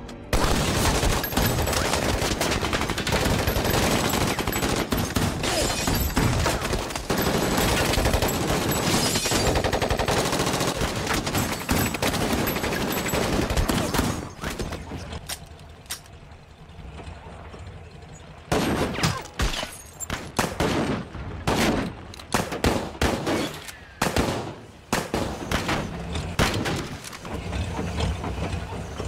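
A massed volley of gunfire, many guns firing at once without a break for about fourteen seconds. After a short lull it gives way to scattered single shots and short bursts until near the end.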